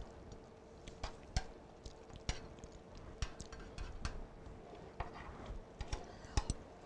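Metal spatula spreading chocolate frosting in a glass baking dish, its blade scraping and clicking against the glass in irregular light taps, a few louder than the rest.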